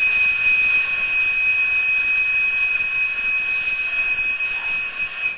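Alto saxophone played by a homemade servo-driven robot, holding one long, shrill, high note with a hiss of air, then stopping. It sounds horrible, and one of the keys is stuck.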